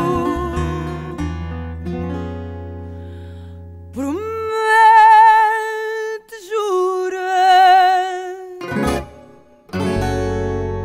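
Music from a Portuguese song: plucked guitar notes ringing out, then a singer holding two long notes with vibrato, and a fresh guitar chord near the end.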